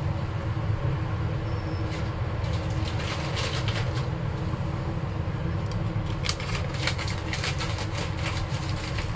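Kitchen handling noise: short clicks, clinks and rustles of dishes and utensils being moved, coming thicker after about six seconds, over a steady low hum.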